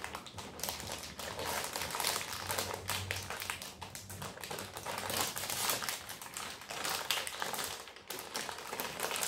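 Foil blind-bag packs crinkling and crackling as two children tear them open by hand: a dense, uneven run of quick crackles.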